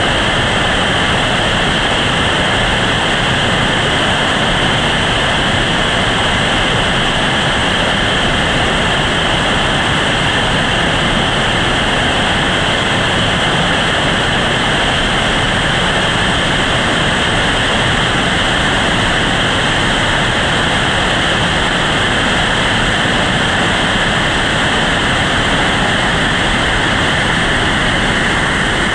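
Whitewater rapids rushing over and around boulders: a loud, steady rush of water.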